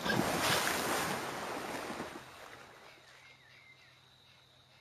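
A capybara dashing through shallow water in flight, throwing up spray: a loud rush of splashing that fades out after about two seconds.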